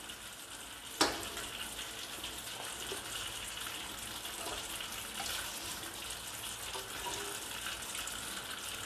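Steady hiss of cooking on the stove, with oil and butter heating in a wok beside a pot of boiled fettuccine. A single sharp click about a second in.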